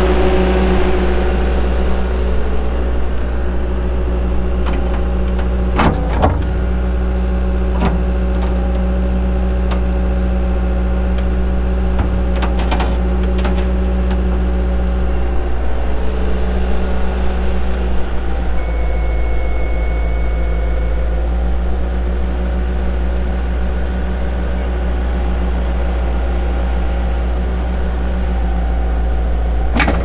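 Terex PT-75 compact track loader's 71 hp Perkins diesel running steadily while its hydraulics work the loader arms, with a few sharp clanks.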